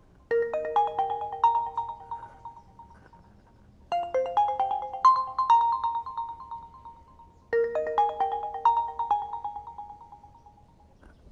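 A Realme C21Y stock ringtone: a short melody of quick notes that ring and fade, played three times, about every three and a half seconds.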